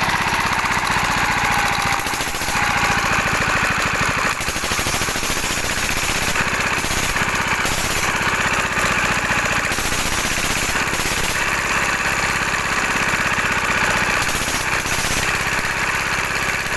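Dompeng-type single-cylinder diesel engine running steadily with a rapid, even firing beat.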